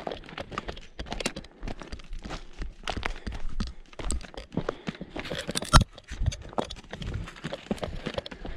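A trail runner's footsteps crunching on loose stony ground, with the clicks of trekking-pole tips striking rock, a quick irregular patter. One sharper knock stands out about two-thirds of the way in.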